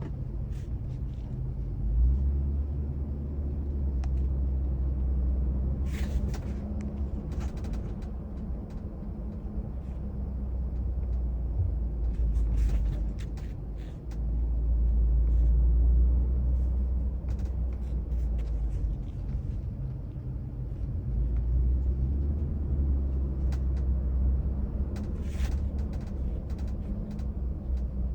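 Steady road rumble inside a moving Lexus GX 550, with several bursts of short sharp rattles and clicks from the rear D-pillar area. This rattle is present at all speeds.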